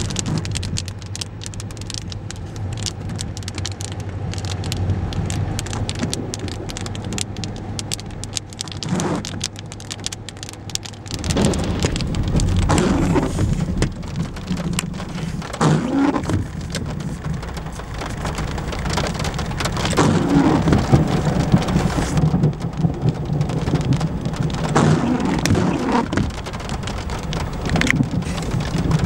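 Rain falling on a car's roof and windscreen in a thunderstorm, with many sharp drop impacts over a steady low hum from the vehicle. From about a third of the way in, louder low rumbles of thunder swell and fade several times.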